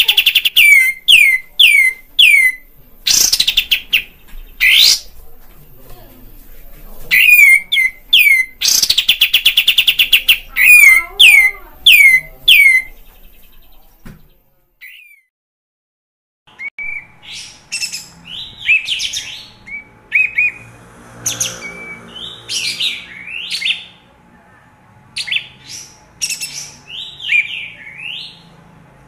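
Kapas tembak bulbul singing: loud, fast series of notes sweeping downward, broken by rapid trills. After a pause of about three seconds comes a quieter, more varied song over a faint steady hum.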